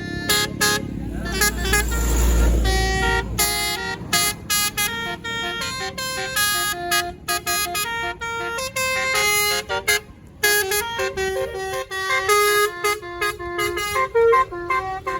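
Bus 'telolet basuri' musical air horn playing a tune of quick stepped notes, with a deep rumble underneath for a few seconds near the start.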